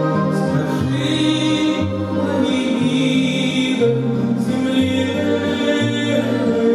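A man singing long held notes into a microphone over grand piano accompaniment.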